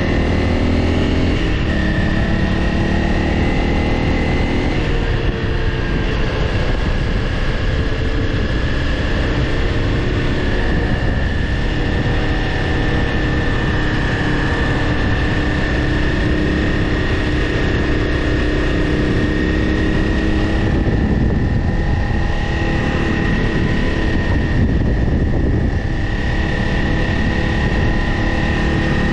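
Honda CRF300L Rally's single-cylinder engine running at road speed, with wind rushing over the microphone. The engine note climbs for the first few seconds, drops about five seconds in as it shifts up, then holds steady.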